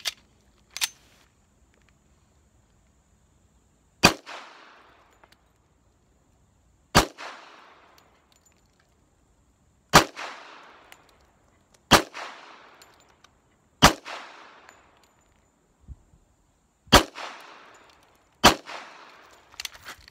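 Springfield Armory 1911 Mil-Spec .45 ACP pistol fired slowly, seven single shots one and a half to three seconds apart, each followed by an echo, after two short sharp clacks in the first second. The shots are a full 7-round magazine of SIG 230-grain V-Crown hollow points, and the pistol cycles every round without a stoppage.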